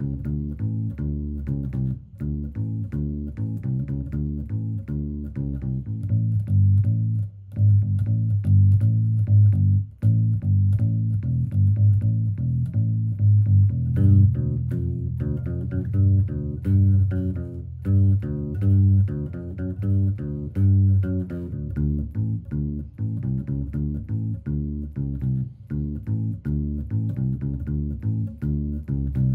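Background music led by a plucked bass guitar and guitar, with a steady rhythm.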